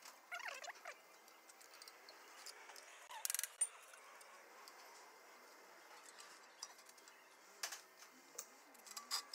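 Faint scattered metal clicks and a short clatter about three seconds in: hand tools knocking against a car's front wheel hub and brake disc as a tool is fitted. A brief high squeak sounds near the start.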